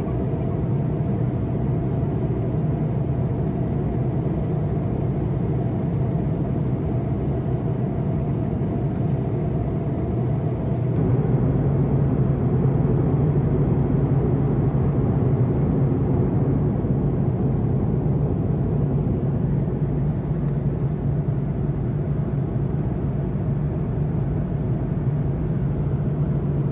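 Steady low rumble of jet engines and airflow inside an Airbus A330-200 cabin at cruise altitude, with a faint hum over it; the rumble gets a little louder about eleven seconds in.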